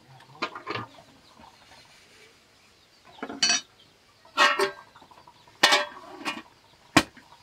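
Metal cookware and utensils clanking: several separate knocks and scrapes spread about a second apart, some leaving a short metallic ring.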